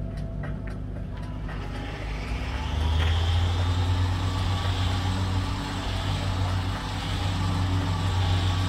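A motor running steadily with a low hum, growing louder about three seconds in and then holding steady.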